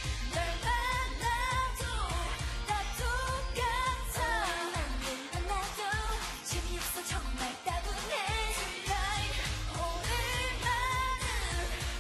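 K-pop dance song performed live: women singing over a pop backing track with a steady bass beat.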